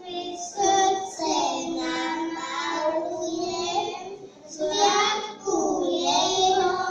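Young children singing together in long held phrases, with short breaks about four and a half and five and a half seconds in.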